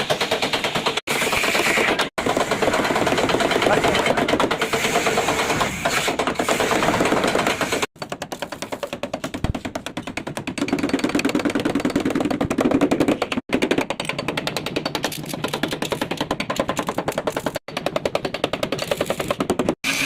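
A power tool hammering very rapidly and continuously, a fast even rattle of impacts, broken off by several sudden cuts.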